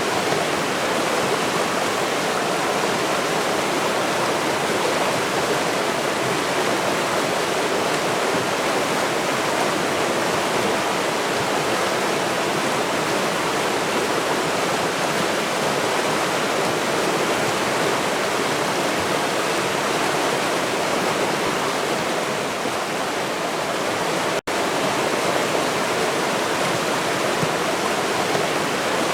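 River water rushing in a steady, even flow, with a split-second dropout about three-quarters of the way through.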